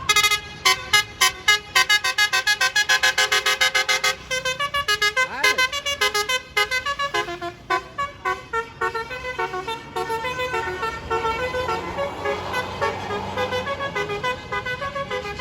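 Bus telolet horn playing a fast melody of short toots, about five notes a second, changing pitch from note to note. It grows softer and more run-together in the second half.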